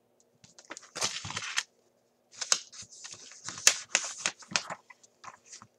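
Pages of a picture book being turned and handled: crisp paper rustles and flaps, one short cluster about a second in and a longer run of crackles from about two and a half seconds to near the end.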